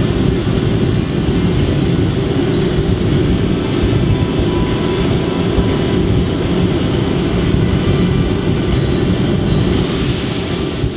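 Steady low roar of a glassworks hot shop: gas-fired furnaces and glory hole burners with ventilation running. A higher hiss joins near the end.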